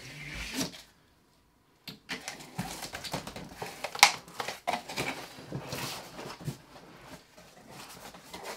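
Large cardboard TV box being opened by hand: cardboard scraping and rustling with small knocks as the top of the box is worked loose and lifted, and a sharp snap of cardboard about four seconds in. It drops to near silence for about a second near the start.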